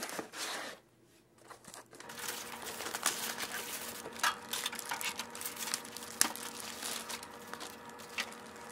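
Cardboard motherboard box and its packaging being handled: flaps and lid sliding, plastic wrapping crinkling, and small knocks as the board and accessories are lifted out. A short rustle comes first, then a pause of about a second, then steady rustling with scattered clicks from about two seconds in.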